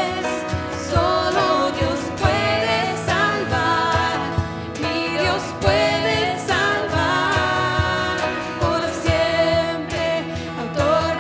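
Worship song: a voice singing a melody over a band, with a steady drum beat.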